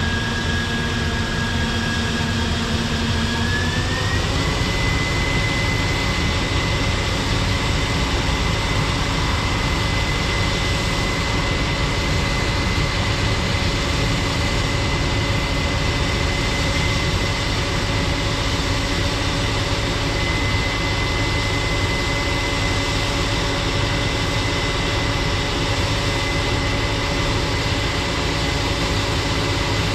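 Heavy farm machine's engine running steadily with a high whine; the engine speed and whine rise about four seconds in, then hold level.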